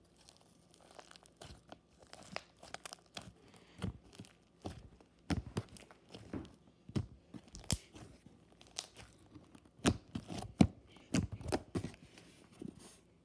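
Slime being kneaded and stretched by hand while foam soap is worked in to soften it, giving irregular sharp clicks and crackles, with quieter gaps between them.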